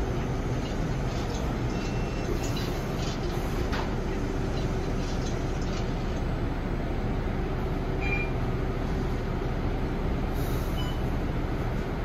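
Cabin noise inside a Linkker LM312 electric bus under way: a steady low rumble of road and running noise with a faint even hum, light rattles, and a few brief faint high-pitched tones.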